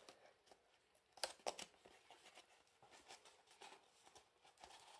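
Near silence with faint clicks and light handling noise from paper craft pieces and an egg carton being moved on a table, with two sharper clicks a little over a second in.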